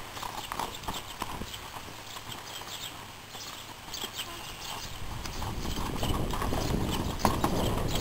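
Hooves of loose Oldenburg horses beating irregularly on the dirt arena footing as they trot and canter. A rushing noise grows louder from about halfway through.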